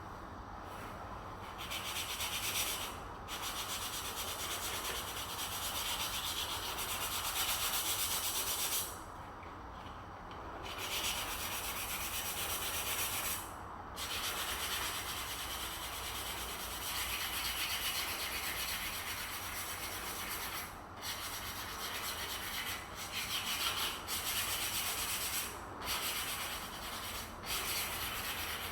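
Sanding: steady rubbing in long stretches, broken by a short pause about nine seconds in and several brief pauses near the end.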